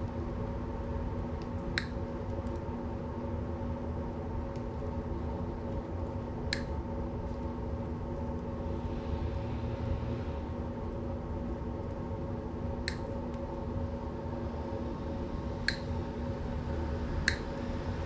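Wire cutters snipping and stripping electrical wire, a sharp click now and then: about five separate snips. A steady hum runs underneath.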